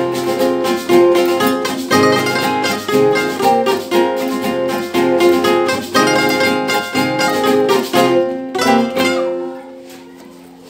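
Two acoustic guitars playing an Ecuadorian folk tune, picked melody over strummed chords and a bass line in a steady rhythm. The playing winds down about eight seconds in, and the last notes ring out and fade.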